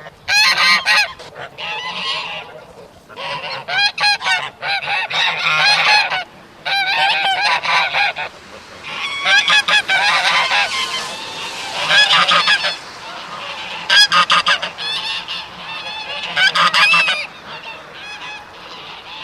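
Domestic geese honking, several birds calling over one another in repeated bursts with brief pauses between them.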